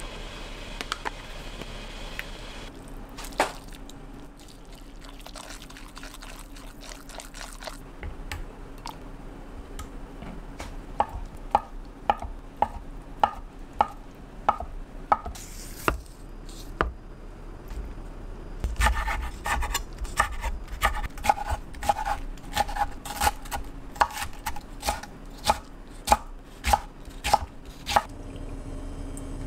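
A kitchen knife chops on a wooden end-grain cutting board, dicing Spam in regular strokes about two a second. Later comes a denser, quicker run of chops through kimchi. A few light clicks come before the chopping starts.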